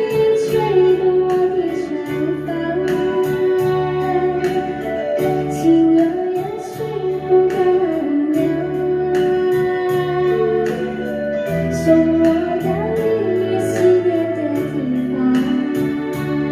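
Song music: a wavering, gliding lead melody over sustained bass notes and a steady beat of about two strokes a second.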